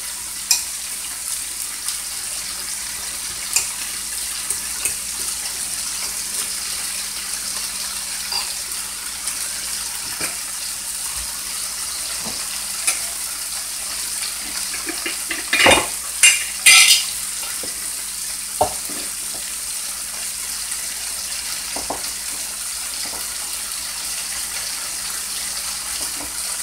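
Beef short ribs sizzling steadily in a frying pan, with a few light clinks of a spoon stirring beef base into water in a glass measuring cup. A short clatter of several sharp knocks from kitchen utensils comes a little past halfway.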